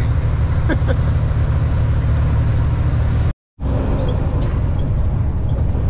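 Steady low drone of a Western Star semi-tractor's diesel engine and road noise inside the cab while driving. A little past halfway it cuts out for a moment and picks up again.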